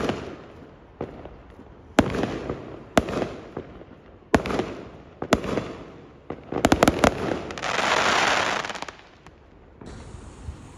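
Fireworks exploding overhead: sharp bangs about once a second, each with an echoing tail, then a quick volley of bangs in the middle followed by a loud hissing crackle lasting about a second and a half, after which it quietens.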